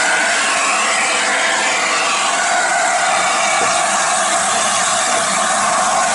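LNER A4 Pacific steam locomotive 60007 Sir Nigel Gresley moving slowly past, with a loud, steady hiss of steam and no distinct exhaust beats.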